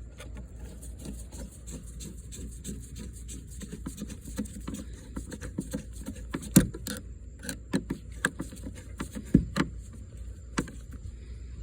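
A screwdriver tightening the worm-drive clamp on the intake hose, with hands handling the hose: scattered small clicks and scrapes, and a few sharper knocks, over a steady low hum.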